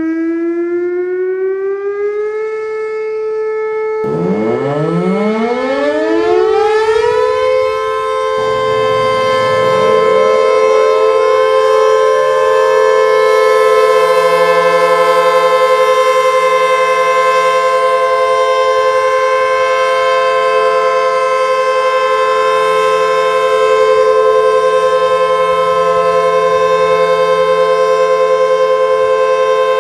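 Tornado sirens winding up one after another: the first rises and levels off within the first few seconds, a second winds up about four seconds in, and a third about eight seconds in. The three then hold steady tones together in a chord.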